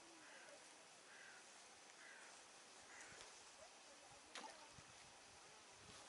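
Near silence: faint outdoor lakeside ambience with a few soft chirps and a single sharp click about four and a half seconds in.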